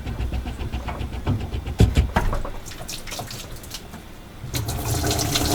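Engine coolant pouring and splashing out of a just-disconnected coolant hose, with a few sharp knocks about two seconds in; the pour grows louder near the end.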